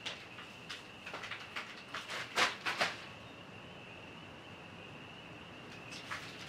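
Short rustling and patting noises from wet plaster bandage being pressed and smoothed onto legs, bunched in the first three seconds, over a steady high trill of insects.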